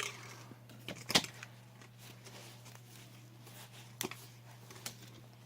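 A handful of sharp knocks, something being hit against a hard surface, the loudest about a second in, over a steady low hum.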